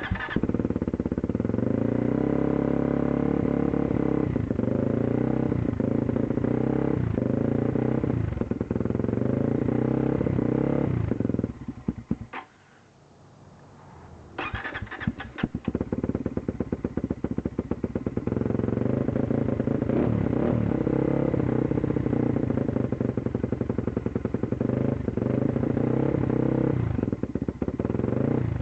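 Small engine running unevenly with a misfire, then stalling about 11 seconds in. A few seconds later it is cranked, catches and runs again, still unevenly.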